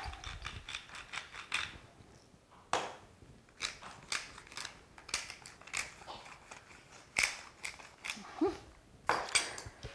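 Hand-twisted salt and pepper grinder ratcheting in a fast run of clicks for about the first second and a half as it grinds seasoning. After that come scattered single clicks and light taps.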